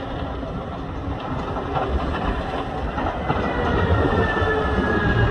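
Cat 160 AWD motor grader running under load while plowing snow: a heavy engine rumble mixed with the rush of snow off the plow, growing louder as it comes closer. About three seconds in a thin whine starts and slowly falls in pitch.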